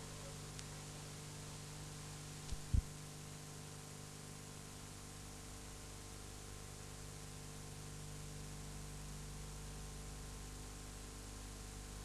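Steady electrical hum with faint hiss from the blank end of a videotape being played back. Two brief low thumps come about two and a half seconds in.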